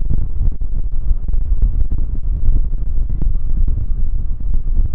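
Boeing 747-400 freighter's four jet engines at takeoff power: a loud, deep, rumbling drone that swells and fades slightly, with some wind buffeting on the microphone.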